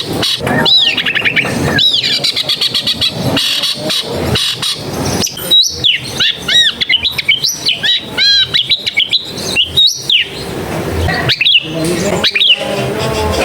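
Long-tailed shrike (cendet) singing a fast, varied song of arching whistled notes mixed with rapid rattling trills and chirps.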